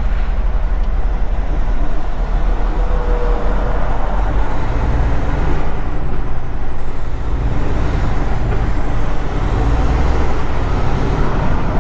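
Heavy truck's diesel engine running, heard from inside the cab, as the tractor-trailer pulls away and rolls slowly forward, the low rumble growing stronger from about four seconds in.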